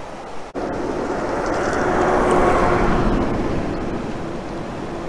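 A passing vehicle: a steady engine hum with broad road or air noise that swells to a peak about halfway through and slowly fades. It starts abruptly about half a second in.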